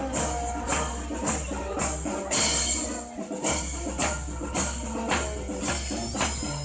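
Marching band playing a march: held melody notes over a steady, regular percussion beat.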